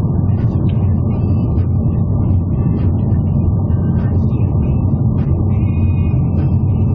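Car moving at road speed: a steady, loud rumble of tyres and engine heard inside the cabin, with faint short higher-pitched tones over it.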